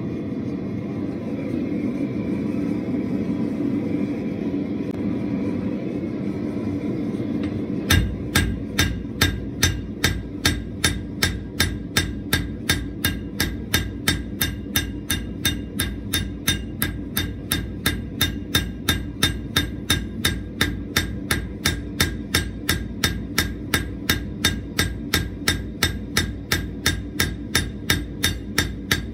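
The forge runs with a steady roar. About eight seconds in, a hand hammer starts striking hot steel on an anvil, about two to three even blows a second, flattening and shaping a forged leaf.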